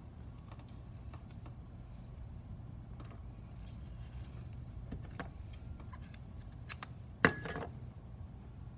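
Light clicks and taps of small carbon-fibre drone frame parts being handled on a silicone work mat, with one sharp, much louder click about seven seconds in. A steady low hum runs underneath.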